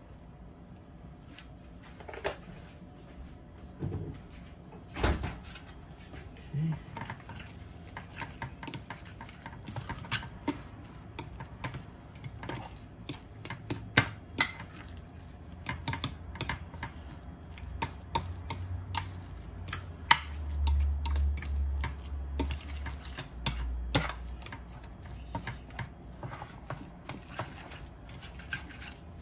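A metal spoon stirring and mashing potatoes in a glass baking dish: irregular clinks and scrapes against the glass, with a low rumble for a few seconds past the middle.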